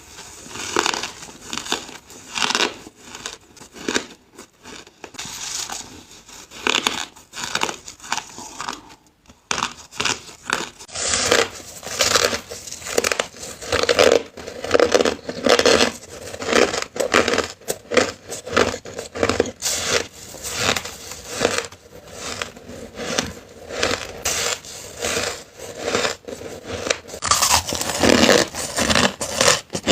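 Hard crushed ice being bitten and chewed close to the microphone: rapid, dense crunching, with a short pause about nine seconds in.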